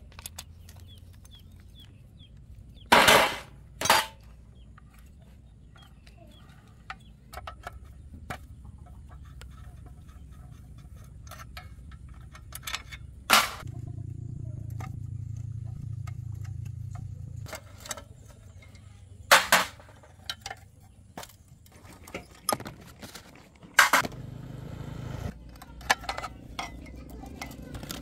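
Metal tools and parts clinking and knocking as they are handled, with several louder sharp strikes spread through; a low hum comes in for a few seconds twice.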